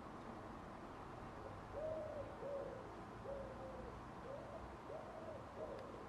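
A pigeon cooing: a run of about six low hooting notes, each rising and falling slightly in pitch, starting nearly two seconds in.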